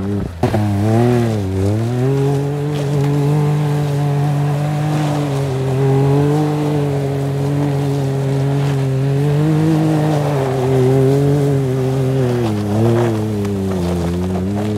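Can-Am Maverick X3 XMR side-by-side's three-cylinder engine revving up and then held at high revs while the machine spins on the snow, its pitch wavering with the throttle and dipping briefly twice near the end.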